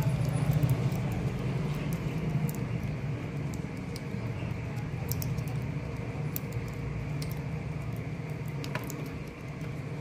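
Faint clicks and scratches of hands working enamelled copper winding wire into the slots of a fan motor's stator during rewinding, over a low steady hum that is loudest at the start and eases off.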